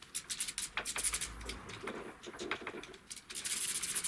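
Plastic and metal handling noise from a handlebar switch housing and grip being worked off an electric chopper's handlebar: irregular clicks and scrapes, with a quick run of rattling clicks about three seconds in.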